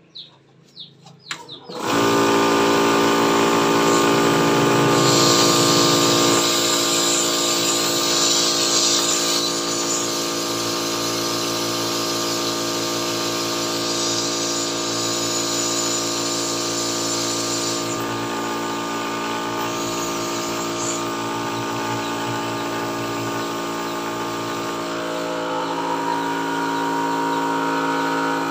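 Yong Heng electric high-pressure PCP air compressor switching on about two seconds in and running steadily with many even tones. It is started with the unload valve open so it runs without load, and a hiss of escaping air comes and goes twice. Near the end the tone rises as the unload valve is slowly closed and pressure starts to build.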